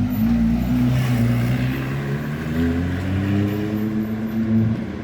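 A Ferrari's engine running as the car drives past at low speed. Its pitch dips briefly and then climbs steadily as the car accelerates.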